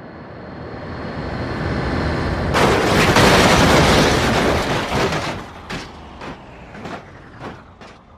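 A rumbling noise that builds up for about two and a half seconds, swells into a loud blast-like roar, then dies away over the last few seconds with scattered crackles and clicks.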